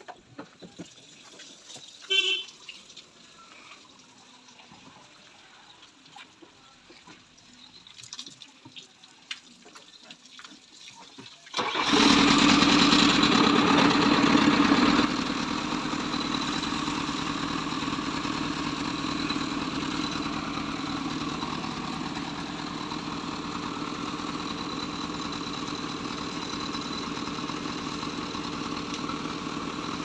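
JCB 4DX backhoe loader's diesel engine starting about twelve seconds in. It runs higher for about three seconds, then settles to a steady idle. Before it come a few scattered knocks and clicks.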